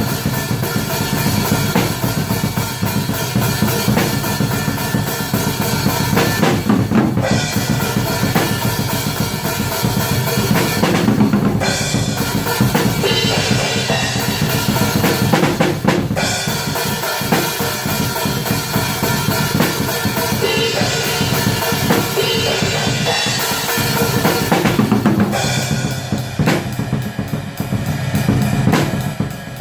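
Atmospheric black metal music: dense distorted guitars over fast, continuous drumming with bass drum and snare, easing briefly a few times.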